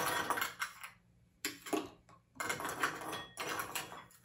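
Ice cubes clattering and crunching against one another as they are scooped up for a drink, in four bursts of rattling with short pauses between.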